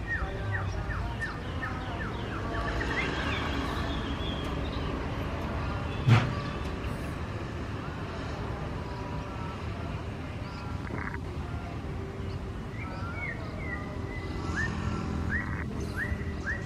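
Diesel-electric locomotive rumbling as it draws a passenger train slowly along the track, with one sharp clank about six seconds in. Runs of quick, high, repeated chirps sound near the start and again near the end.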